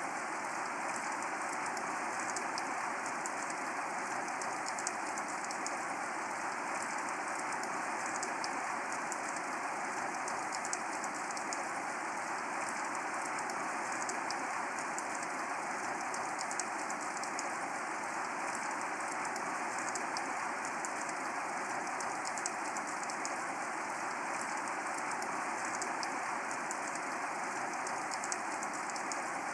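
Steady rain falling: an even, unbroken hiss with many small raindrop ticks scattered through it.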